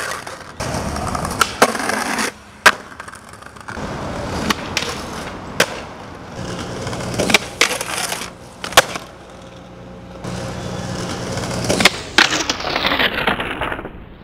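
Skateboard wheels rolling over paving, broken by about eight sharp wooden clacks of the board being popped and landing.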